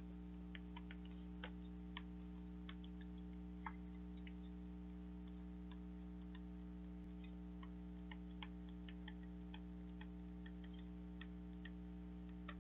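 Faint, irregular light clicks of a stylus tapping a tablet or pen screen while handwriting, over a steady low electrical hum.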